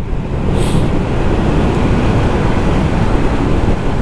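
BMW S 1000 R motorcycle ridden at speed: a steady rush of wind noise over the running engine.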